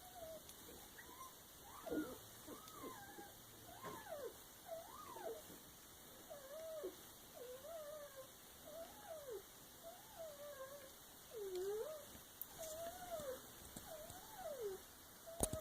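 Puppies whimpering: a steady run of short, high whines that rise and fall in pitch, roughly one a second.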